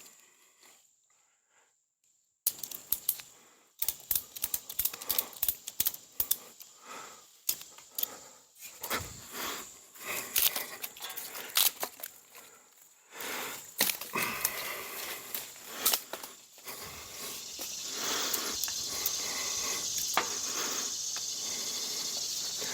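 Metal ladder stand being climbed and handled: irregular clanks, knocks and clicks of its metal parts, starting after about two seconds of near silence. A steady hiss comes in near the end.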